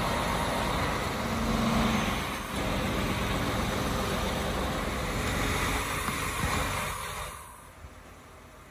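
Container delivery lorry's engine running while its crane lifts a 20ft shipping container, with a short steady hum about a second in. The sound drops away sharply about seven seconds in.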